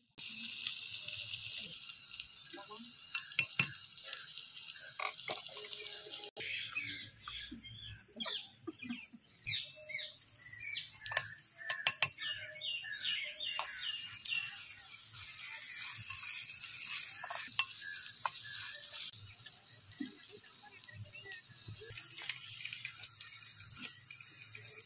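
Chopped vegetables sizzling as they fry in a miniature clay pot over a small wood fire, with a steady hiss throughout. A metal spoon stirs them, clicking and scraping against the clay many times.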